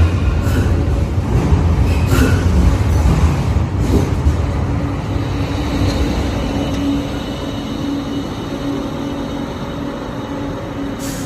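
Karlsruhe tram-train running on the rails, a loud low rumble that slowly fades, with a few sharp clicks and a steady hum through the second half.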